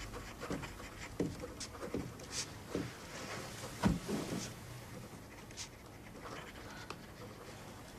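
Soft footsteps and clothing rustle, with a dull thump about four seconds in as a person sits down on a sofa.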